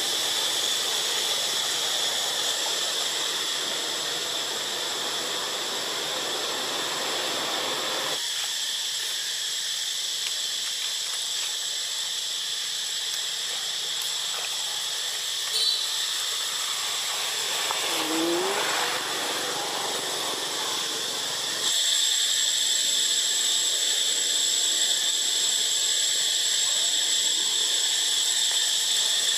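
Steady, high-pitched drone of insects in tropical forest. A short rising call sounds about two-thirds of the way through, and the background changes abruptly twice where the shots change.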